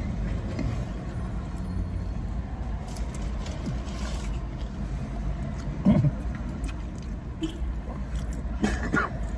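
Steady low rumble of a car engine idling, with a short vocal sound from a person about six seconds in and another brief one near the end.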